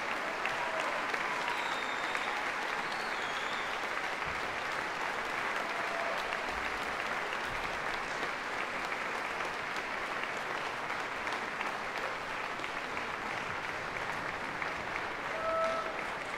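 Large concert-hall audience applauding steadily at the close of an orchestral performance, with a few short cheers rising above the clapping.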